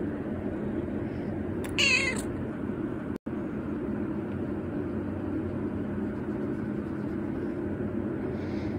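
A 119-day-old tabby-and-white kitten meowing once, briefly, about two seconds in, over a steady low background hum.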